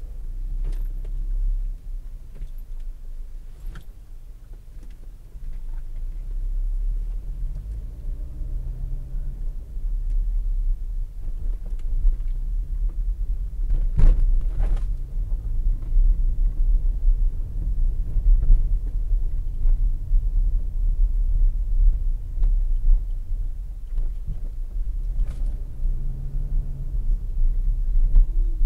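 Low rumble of a car's engine and tyres driving slowly, heard inside the cabin through a dashcam microphone, with a few short knocks from bumps or rattles, the loudest about fourteen seconds in.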